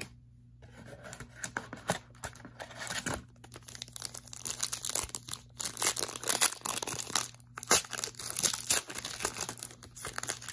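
A Donruss Optic basketball card pack wrapper being torn open and crinkled: a long run of crackling rips and crumples, with a short pause about seven seconds in.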